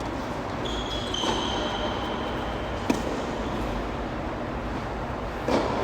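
A tennis ball knocked once by a racket or bouncing, a single sharp knock about three seconds in, over steady background noise, with a short high squeak about a second in and a softer knock near the end.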